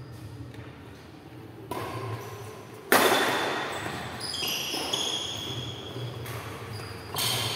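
Badminton rackets striking a shuttlecock in a doubles rally: five sharp hits at irregular intervals of about one to one and a half seconds, the loudest about three seconds in, each echoing in a large hall.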